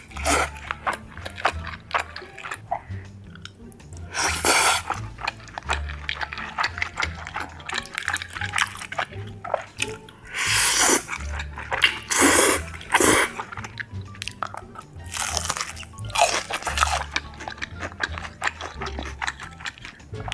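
Close-up eating sounds: biting, chewing and slurping of pizza and spaghetti, with several louder slurps, most of them in the middle. Under it runs background music with a steady bass beat.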